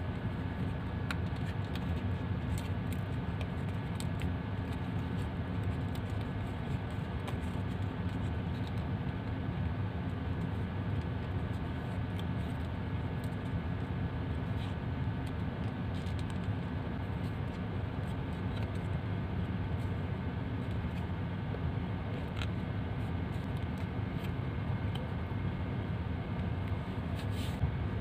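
Origami paper being folded and creased by hand: scattered faint crinkles and taps over a steady low background hum.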